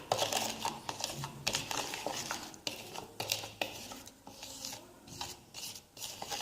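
A spoon stirring and scraping a flour, sugar and water glue paste in a container, with irregular clinks and scrapes against the sides.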